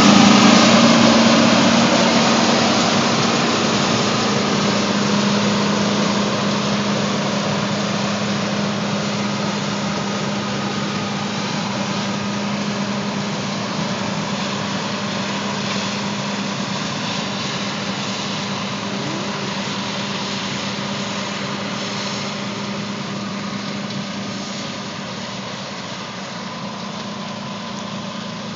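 Combine harvester running steadily, a droning engine hum over a broad mechanical rush, gradually growing quieter.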